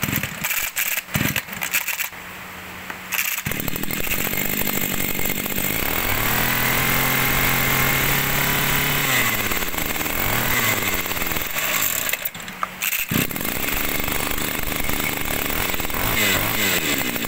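Shindaiwa 26cc two-stroke brush cutter engine being pull-started with its recoil starter, catching about three and a half seconds in and running. It is revved up and held high, let back down, blipped again, dips briefly about twelve seconds in, then runs on and revs once more near the end.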